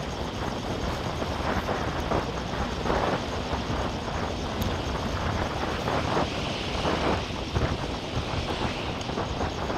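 Wind rushing over the microphone of a moving bicycle, with the tyres rolling on a tarmac path, a steady noisy rumble that flutters a little throughout.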